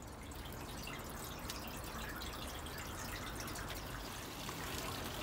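Water trickling and dripping steadily into a bathtub fish pond, a continuous run of small drips and splashes.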